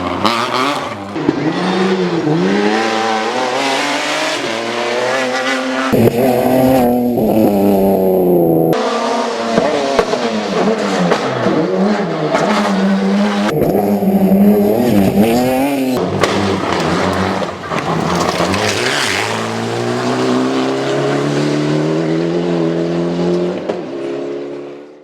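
Rally car engines revving hard on a gravel stage, the pitch climbing and dropping again and again with gear changes and lifts, in a run of short cut-together passes. The sound fades out near the end.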